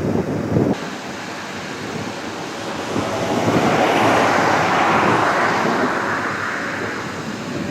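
Rushing outdoor noise of wind and road traffic during a thunderstorm, with a broad whoosh that swells from about three seconds in and fades again toward the end.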